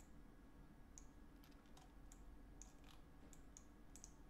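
Faint computer mouse clicks, about half a dozen at irregular intervals, over quiet room tone.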